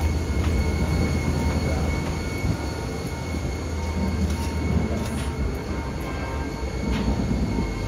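Steady low rumble with a thin, steady high whine: the machinery noise of a parked airliner and its gate equipment, heard from inside the jet bridge. A few faint clicks over it.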